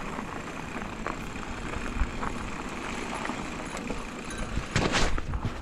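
Mountain bike rolling down a loose gravel and dirt trail: tyres crunching over stones and the bike rattling, with a louder crunch of noise about five seconds in.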